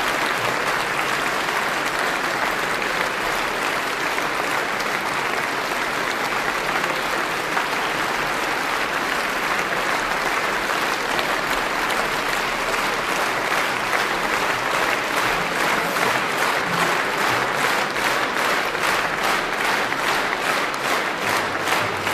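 A large concert-hall audience applauding; about halfway through, the clapping settles into a steady rhythm clapped in unison.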